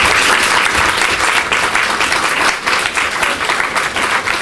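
An audience applauding: many hands clapping together in a dense, even patter.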